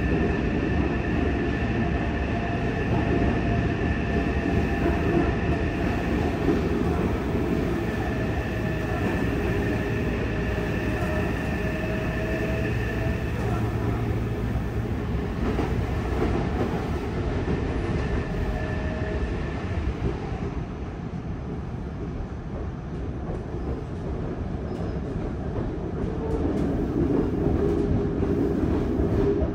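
Interior running sound of a Yokohama Blue Line 3000R subway car: steady rumble of the wheels on the rails, with the high whine of its Mitsubishi IGBT-VVVF traction inverter and motors. The whine fades away about two-thirds of the way through, leaving the rolling rumble.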